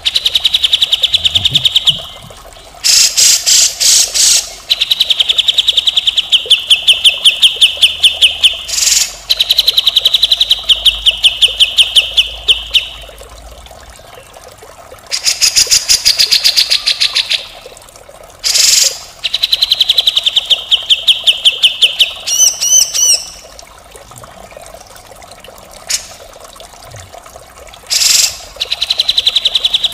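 Grey-cheeked bulbul (cucak jenggot) singing in the harsh 'mbeset' style: runs of fast, chattering notes a few seconds long, repeated with short pauses and broken by brief rough, rasping calls.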